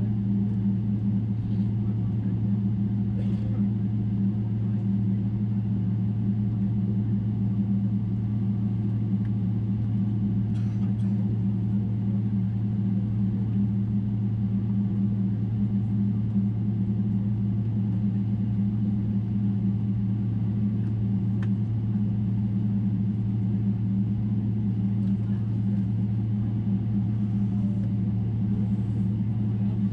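Boeing 777-300ER's GE90 jet engines heard from inside the passenger cabin: a steady, even drone with a low hum, holding constant throughout, with a few faint ticks.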